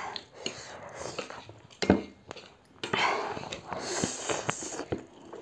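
Spicy instant noodles being slurped and eaten with chopsticks, with breathy mouth noises and small clicks, and one long loud slurp about three seconds in.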